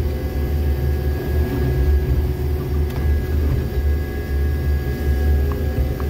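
Jackson 6700 railway tamper running steadily under load, heard from inside its cab as its work head sweeps mud out of the tie cribs: a heavy, low engine drone with a thin, steady high tone above it.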